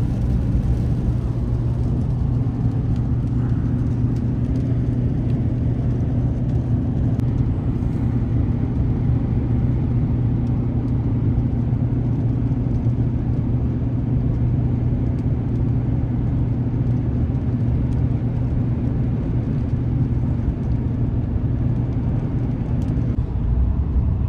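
Steady engine drone and road noise of a vehicle driving at a constant speed, heard from inside the cab.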